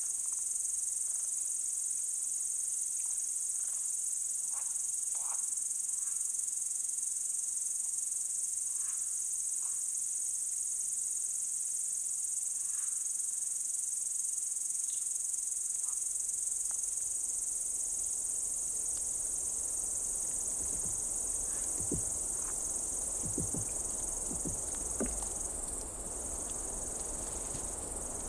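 A dense, steady, high-pitched chorus of singing crickets in a wild field recording, with faint scattered short calls in the first half. From about two-thirds through, a soft rushing haze rises underneath with a few low knocks.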